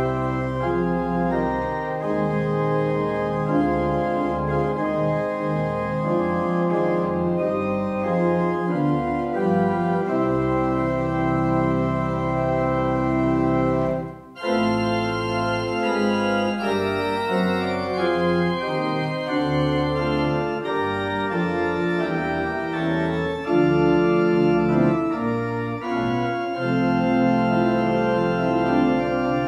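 Church organ playing a prelude in sustained chords, with a brief break about halfway through before the music resumes.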